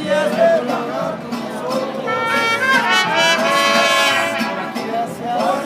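Mariachi band playing live, with trumpets leading over guitars and a guitarrón. From about two seconds in, the trumpets hold a long, bright phrase.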